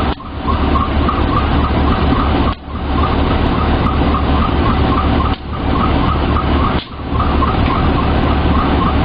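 Railway diesel engine idling with a steady low drone and a faint rhythmic pulsing above it. The loudness drops briefly a few times, about a third of a second in, near the middle and twice later on.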